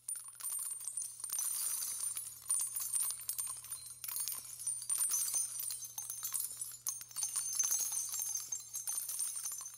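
High-pitched jingling and tinkling, dense and irregular, over a faint steady low hum.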